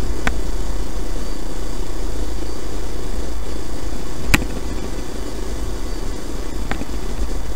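Steady low background hum with three sharp clicks: one near the start, a loud one about four seconds in, after which the hum drops slightly, and one near the end.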